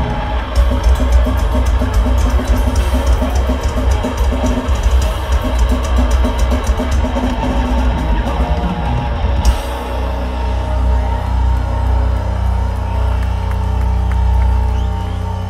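Live metal band playing: fast drumming with cymbal crashes over distorted guitars and bass. About nine and a half seconds in, the drumming stops and a low chord rings on.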